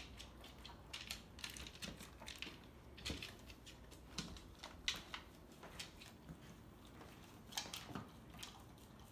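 Black Labrador eating from a plastic slow-feeder bowl: faint, irregular crunching and clicking as she chews and her muzzle knocks the food around the bowl.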